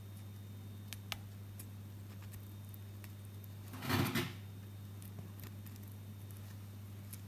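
A pin scraping and clicking inside an iPhone charging port as it stirs a tissue ball around, with one short, louder scrape about four seconds in, over a steady low electrical hum.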